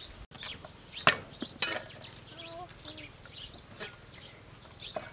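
A knife knocks sharply on a wooden chopping board, twice loudly about a second in and then a few lighter taps, while raw shrimp and squid are cut. A chicken clucks faintly in the middle, and small birds chirp behind.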